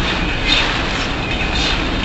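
Steady road noise of a car driving at speed on a wet expressway in typhoon wind and rain, recorded by a dashcam.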